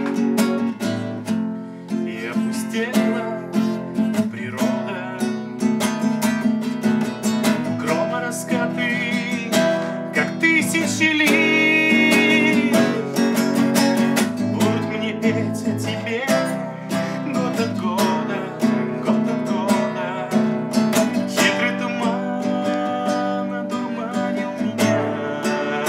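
Acoustic guitar strummed and picked through an instrumental passage of a song, with no singing.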